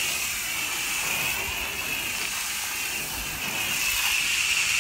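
Water jet from a hand-held spray nozzle on a hose, hissing steadily as it sprays against a car's doors and wheel, with a high whine running through it.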